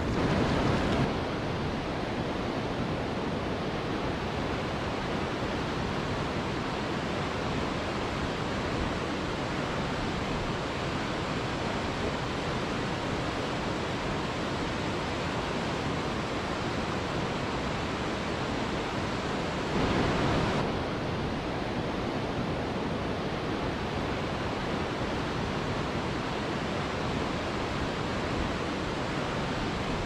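Steady rushing of falling water from a tall waterfall, an even wash of noise. It swells briefly louder and brighter at the very start and again about two-thirds of the way through.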